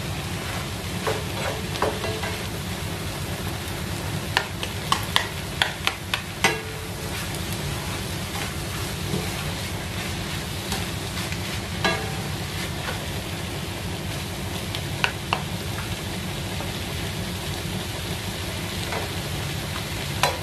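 Diced vegetables and egg sizzling in a nonstick frying pan as they are stirred, with a plastic spatula scraping and clicking against the pan; a quick run of taps comes about four to six seconds in.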